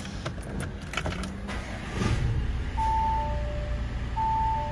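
Audi A4 instrument-cluster warning chime: a two-note high-then-low chime that starts a little under three seconds in and repeats about every second and a half, over a low hum. It goes with the cluster's warning to switch off the ignition before leaving the vehicle. A few light clicks and knocks come before it.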